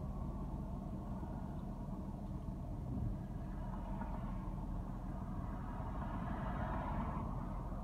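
Car's engine and tyre noise heard from inside the cabin while driving slowly, a steady low rumble with a little more hiss near the end.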